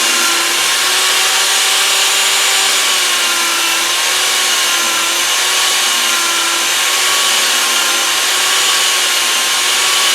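Electric power tool sanding or grinding metal: a steady hiss over a motor whose pitch wavers slightly as the load changes.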